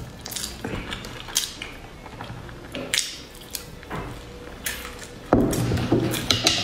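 Close-miked eating sounds: chewing with wet mouth clicks and crackles, and light chopstick clicks. A louder knock and clatter comes about five seconds in as the wooden chopsticks come down by the board.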